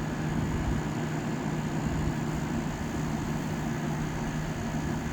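1987 Montgomery Ward by Frigidaire 7,000 BTU window air conditioner running steadily: the fan blows air with a rushing sound over the constant hum of the compressor.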